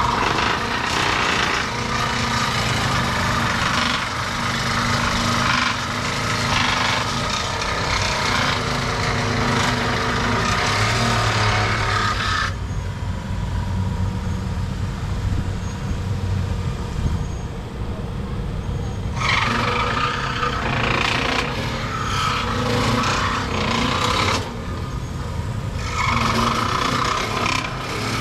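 A power tool running under load in long stretches. It stops for several seconds about halfway through and briefly again near the end.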